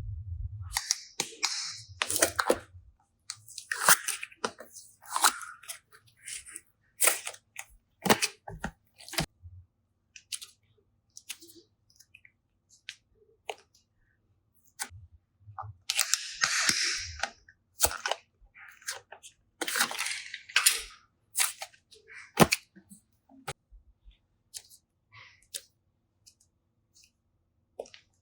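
Hands working slime: a string of sharp pops and clicks, with a few longer squelching, crackling bursts in between.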